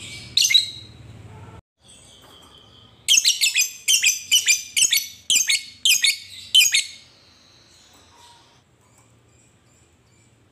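Lovebird calling: a couple of sharp chirps, then a fast series of about ten loud, shrill calls, roughly three a second and each falling in pitch, ending a little past the middle.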